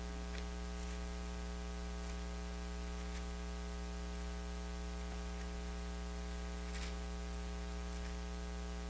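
Steady electrical mains hum with a buzzing stack of overtones and a background hiss from the sound system. A few faint, brief noises rise above it now and then.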